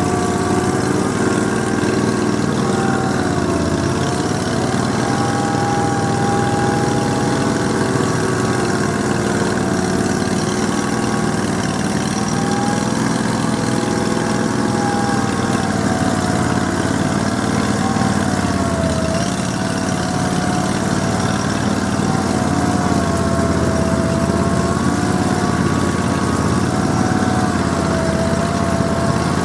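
Argo amphibious ATV engine running continuously, its pitch rising and falling slightly.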